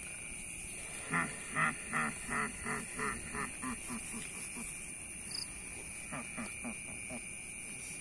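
A duck quacking: a run of about a dozen quacks that come faster and fainter over three seconds, then a shorter run a couple of seconds later. Insects trill steadily underneath.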